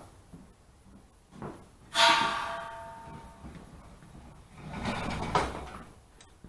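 A metal object is struck or set down with a clank about two seconds in, ringing briefly as it fades. A second, rougher scraping and handling noise follows a few seconds later.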